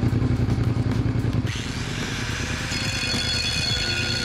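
A motorcycle engine running, driving the spinning rear wheel. About a second and a half in, an angle grinder starts grinding the turning rear sprocket to narrow it for a 520 chain, and its steady high whine and hiss carry on over the engine.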